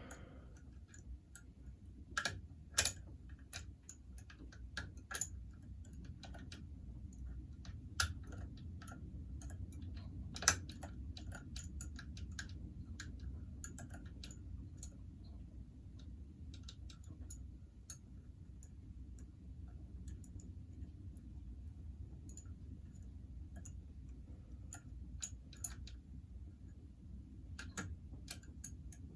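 Lever lock picks working inside 5-lever mortice locks, making faint, irregular metallic clicks and ticks as the levers are lifted, with a few sharper clicks now and then.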